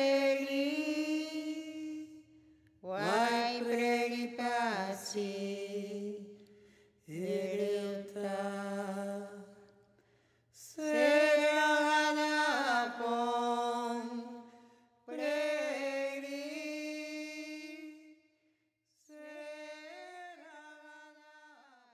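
Unaccompanied chanting voice singing long, held phrases that slide in pitch, about six phrases with short pauses between them, the last one fainter.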